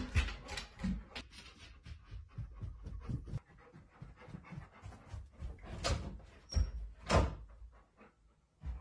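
A golden retriever moving about, with soft, irregular paw steps. About six to seven seconds in come three sharp knocks, the loudest sounds here.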